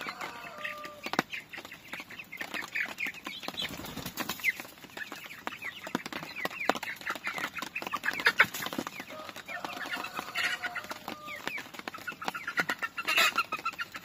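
Young chickens calling in many quick, high chirps and squawks as they are handled and lifted out of a wire carrier cage, with a few longer calls near the end.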